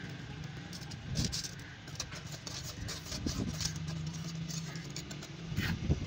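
A steady low motor hum, with occasional light scrapes and taps from the trowel and dry mix against the metal cans.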